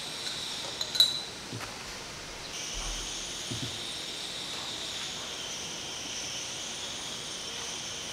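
A glass test tube clinks once against the rim of a glass beaker about a second in, as it is set into the water bath. A steady high hiss runs under it and grows a little stronger after about two and a half seconds.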